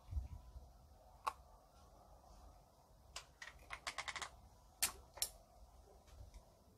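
Scattered small, sharp clicks and taps, with a quick run of several about four seconds in, over a faint low hum.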